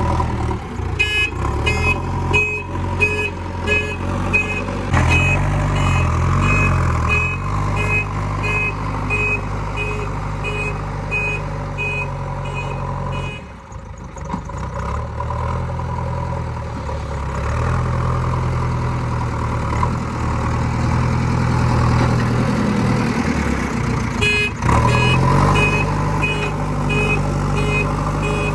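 Diesel engine of a JCB 3DX backhoe loader running and changing revs as it works, with a reversing alarm beeping about twice a second. The beeping stops about halfway through and starts again near the end.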